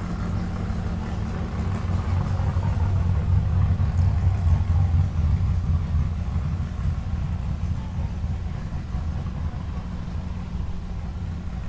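Car engine idling with a steady low rumble, growing a little louder a few seconds in and then easing off.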